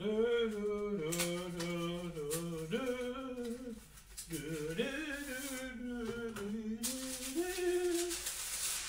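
A man singing a wordless tune to himself, holding notes that step up and down in pitch, with a short break about four seconds in.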